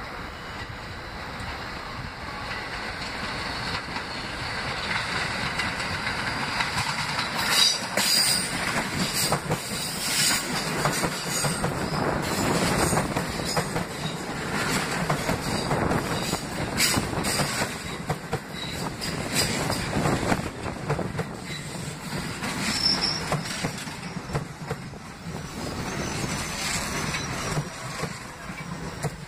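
R68A subway train on an open-cut line approaching and then passing close by. Its steel wheels clack repeatedly over the rail joints, with brief high-pitched wheel squeals. The sound builds over the first several seconds and stays loud as the cars go by.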